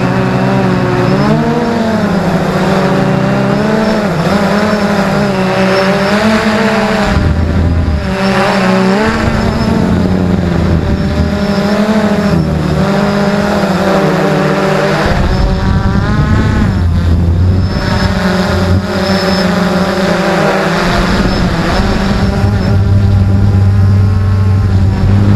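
XK Detect X380 quadcopter's electric motors and propellers running, heard from its own onboard camera, the pitch wavering up and down as the throttle changes while it flies.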